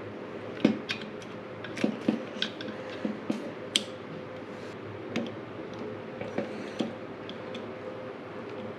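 Small sharp clicks and taps of a metal pick tool and terminals working in a plastic automotive fuse/relay box, with one distinct click near the middle as a terminal or lock snaps into place.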